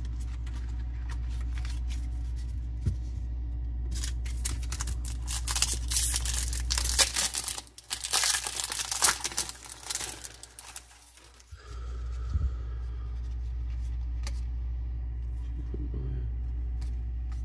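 Foil wrapper of a baseball card pack being torn open and crinkled, with the clicks of handling cards, loudest in the middle few seconds, over a steady low hum.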